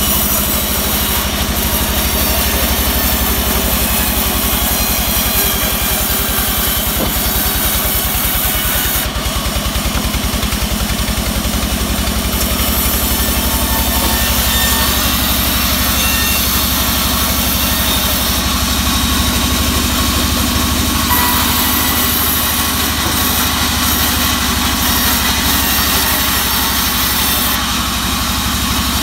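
Vertical band saw running and ripping a teak slab lengthwise: a steady low drone from the saw's drive under the hiss of the blade cutting wood. The cutting noise grows and eases a few times as the slab is pushed through.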